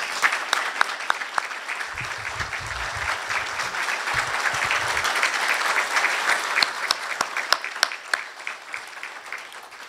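Audience applauding: many hands clapping in a dense, steady patter that tapers off near the end.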